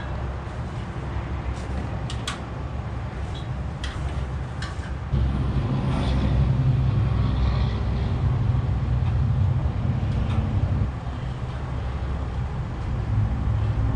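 An engine running steadily with a low rumble, growing louder about five seconds in, with a few sharp metallic clicks in the first seconds.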